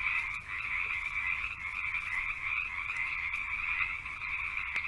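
Dense chorus of frogs calling, a steady unbroken din.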